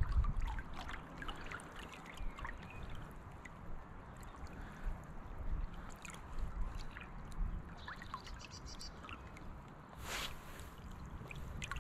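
River water lapping and trickling close to the microphone around a wading angler, many small irregular splashes over a low rumble. There is a short louder rush of noise about ten seconds in.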